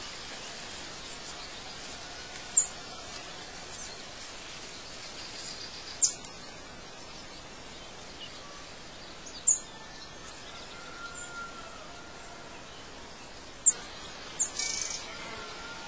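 Outdoor night ambience: a steady hiss with a short, sharp, high chirp every three to four seconds, five in all, the last two close together near the end.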